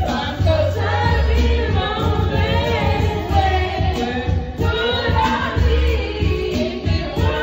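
Two people singing into handheld microphones over loud music with a heavy, pulsing bass line.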